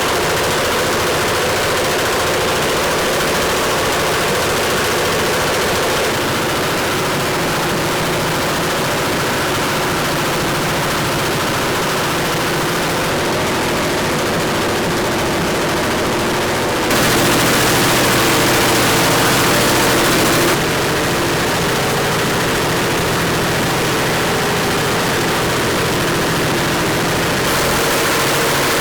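Loud, steady mechanical rattling noise that changes abruptly several times, as if cut between takes.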